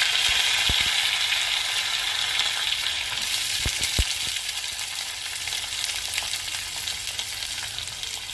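Food sizzling in hot oil in a pan: a steady hiss, loudest at first and slowly easing off, with a few light knocks, the sharpest about four seconds in.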